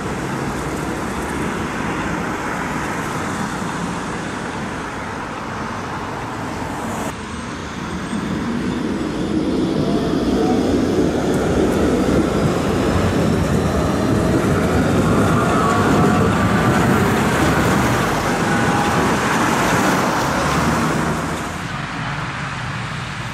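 Two-section electric tram passing close by, its wheels rumbling on the rails and its traction motors whining in several tones that rise slowly in pitch, loudest in the middle. Steady road traffic noise runs underneath.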